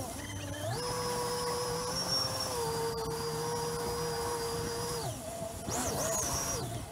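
Yamaha WaveRunner personal watercraft's engine and jet pump running with a steady whine. The pitch rises about a second in as the throttle opens, holds level, and drops about five seconds in, followed by a brief rise and fall near the end.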